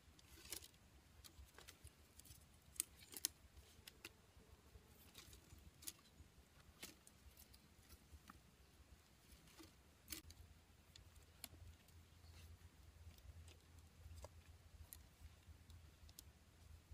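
Near silence broken by faint, irregular clicks and taps of bamboo sticks being handled and lashed together by hand, with two sharper ticks about three seconds in.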